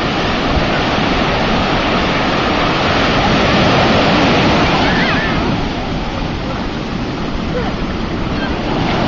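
Rough ocean surf breaking and washing up the beach: a continuous rush of water, swelling a little around four seconds in as a wave breaks at the shoreline.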